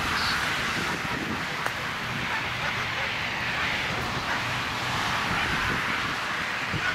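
Steady outdoor noise with wind buffeting the microphone.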